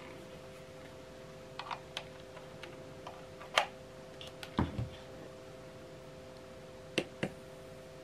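Small plastic clicks and knocks from handling a USB cable and power bank: a USB plug pushed into its port, a sharp click about three and a half seconds in, a duller knock about a second later, and two quick clicks near the end, over a faint steady hum.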